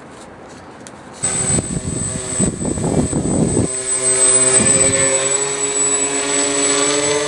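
Electric motor and propeller of an RC plane starting up about a second in and then running steadily, with a high whine over a lower hum and some rushing noise in the first couple of seconds.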